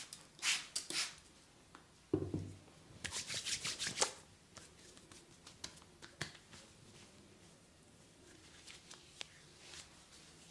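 Hands working over a person during a massage: quick brushing and slapping strokes on skin and hair. There is a dull thump about two seconds in and a fast run of about seven strokes between three and four seconds in, then only faint scattered ticks.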